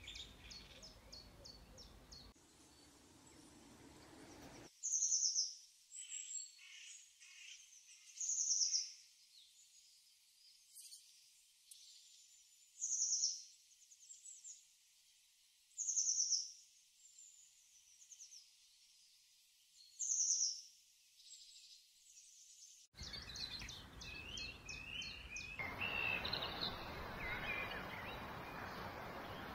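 Small bird singing: a loud, high, falling call repeated about every three to four seconds, each followed by fainter chirps. Near the end a steady outdoor background noise rises.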